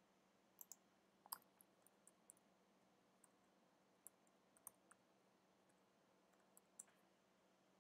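Faint, irregular clicks of typing on a computer keyboard, a dozen or so keystrokes scattered over several seconds.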